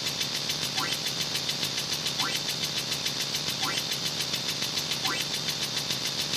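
Steady, rapid mechanical rattle like a running engine, with a short rising chirp about every second and a half.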